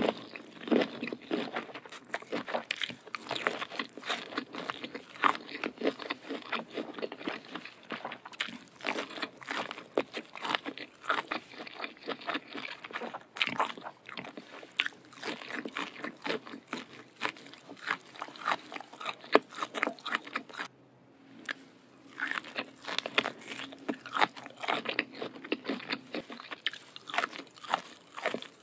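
Close-miked eating sounds of a person biting and chewing giant prawns, a dense run of crisp clicks and crackles, with a short pause about three quarters of the way through.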